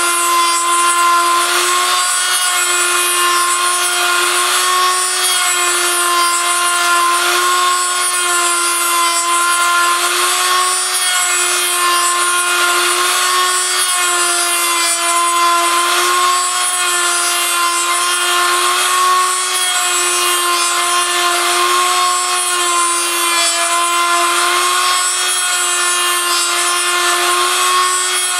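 High-speed rotary tool on a home-built copy-milling machine running steadily with a slightly wavering whine, its bit cutting into a turning wooden lure blank with a rasping wood-cutting noise.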